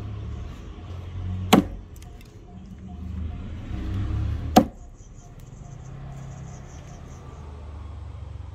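Vintage Belknap Bluegrass axe chopping into a wooden stump: two sharp strikes about three seconds apart, each with a short rising swell just before the hit.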